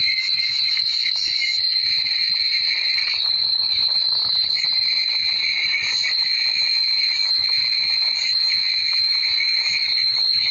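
Steady, high-pitched insect chorus that runs without a break, with a second, lower band that wavers.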